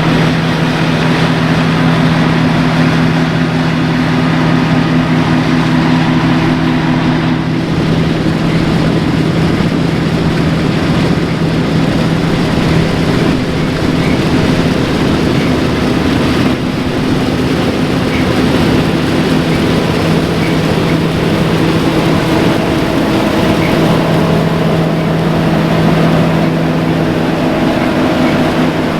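Large diesel harvest machinery running steadily, a constant engine hum with a rushing noise over it. The hum weakens for several seconds about a quarter of the way in, then comes back strong.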